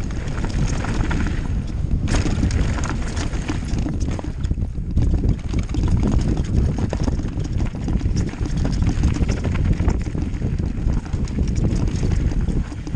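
Mountain bike riding fast downhill on a dirt and stony trail: a steady rush of wind on the microphone over tyre noise, with many small knocks and rattles from the bike going over rough ground.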